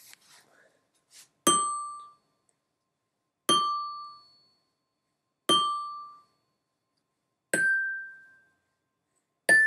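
Glockenspiel bars struck one at a time with a mallet, about every two seconds: the same note three times, then two higher notes, each ringing and dying away within about a second.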